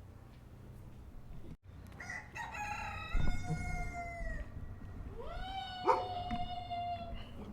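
A rooster crowing twice, each crow a long drawn-out cock-a-doodle-doo, the first falling in pitch toward its end, the second rising, holding and dropping away. A low thump sounds during the first crow.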